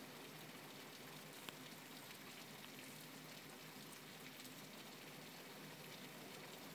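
Faint, steady rain pattering, with scattered small drop ticks and a single sharp click about one and a half seconds in.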